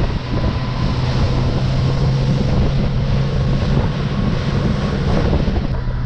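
Speedboat engine running at speed, a steady low drone, with wind buffeting the microphone and water rushing past the hull.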